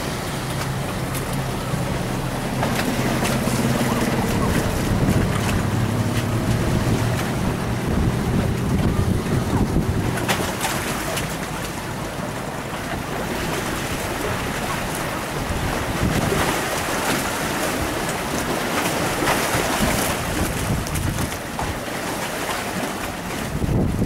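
Wind rushing over the microphone with water and waves, and a motor boat's engine running steadily underneath, clearest in the first half.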